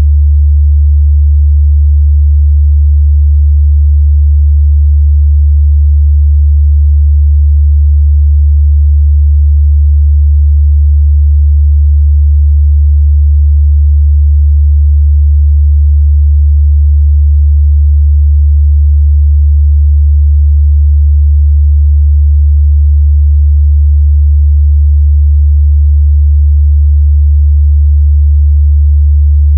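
Steady, unbroken 73 Hz sine test tone: a loud, constant low bass hum used to check a speaker's or headphones' mid-bass response.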